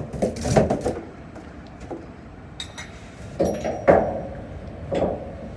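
A handful of separate knocks and clanks of hard objects being handled, the loudest about half a second in and about four seconds in.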